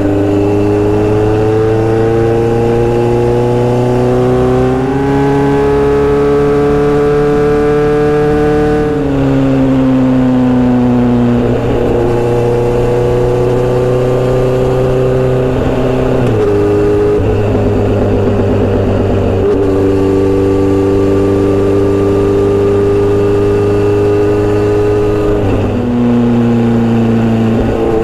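Inline-four motorcycle engine and exhaust heard while riding. The engine note climbs under throttle for several seconds, then drops back sharply, several times over.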